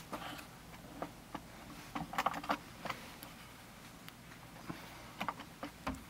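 Faint, scattered small clicks and light taps from handling small parts at a turntable's tone-arm mount. They come a few at a time with short gaps between.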